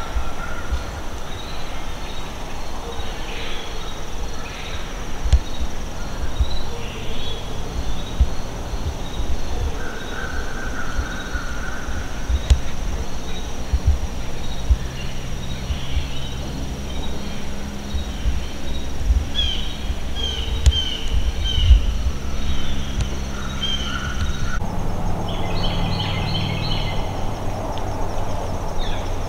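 Woodland ambience: wind buffeting the microphone, scattered bird calls and a steady high insect drone. About 25 seconds in the background changes abruptly and a run of short repeated chirps follows.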